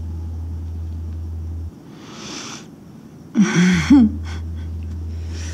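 Women's breathing while kissing: a breathy exhale about two seconds in, then a short voiced moan about three and a half seconds in, the loudest sound, followed by a few faint kissing clicks. A steady low hum runs underneath, dropping out for about two seconds in the middle.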